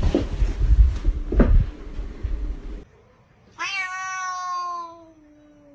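Rumbling wind-like noise on the microphone, then after a cut a domestic cat gives one long, drawn-out meow that slides down in pitch.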